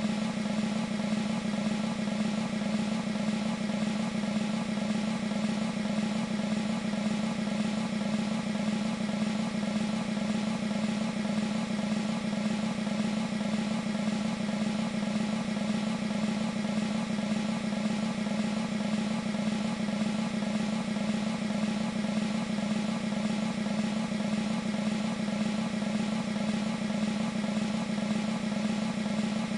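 Sampled military snare drum roll from a Proteus 2 synthesizer's percussion patch, held as one steady, unbroken roll of rapid strokes.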